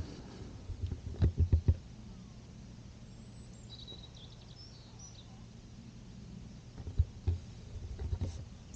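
A small bird chirps a few short high notes about four seconds in, over a low steady rumble. A few low thumps come near the start and again near the end.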